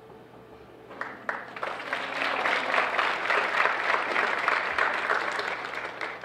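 Audience applauding: a few single claps about a second in, swelling into full applause that fades out near the end.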